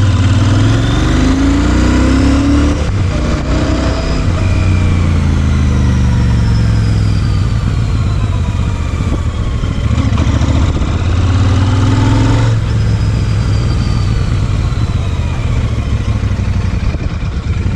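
Royal Enfield Super Meteor 650's 648cc twin-cylinder engine through its stock dual exhaust, heard from the bike while riding. It climbs in pitch twice as it accelerates, about the first three seconds and again in the middle, and falls back after each climb.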